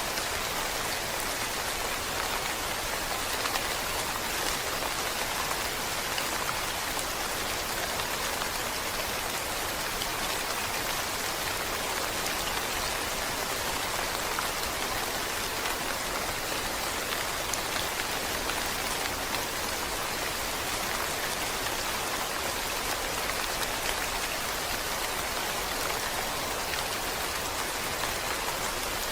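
Steady rain falling, an even hiss of many drops with no break or change.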